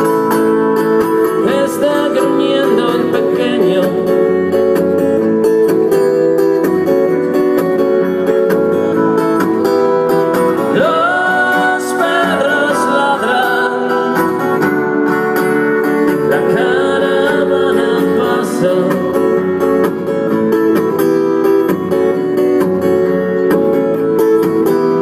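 Acoustic guitar played with a man singing: a solo live song.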